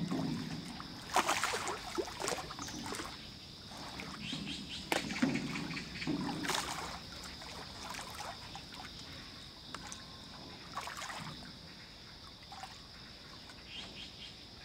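Water sloshing and lapping against a small metal rowboat as a person shifts his weight in it, with a few sharp knocks from the boat, loudest in the first half.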